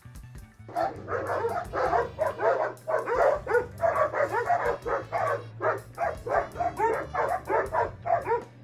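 Dogs barking rapidly at one another in a dense run of overlapping barks, starting about a second in and stopping just before the end.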